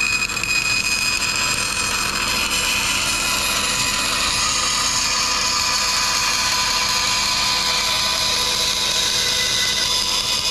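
Laguna 14-inch bandsaw running while its blade cuts a freehand curve through a thin pine veneer. It makes a steady hum and hiss, and the hiss grows stronger about four seconds in.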